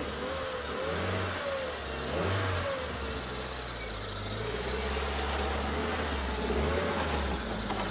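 Car engine running and being revved, swelling about a second in and again a little after two seconds, then held at higher revs for several seconds before easing.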